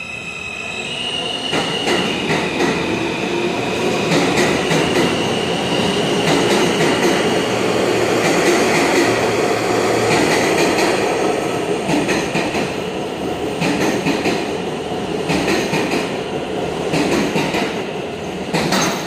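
R160 subway train arriving along an underground platform. A high whine in the first few seconds gives way to a loud, steady wheel-on-rail rumble with repeated clicks, which grows louder over the first few seconds and then holds.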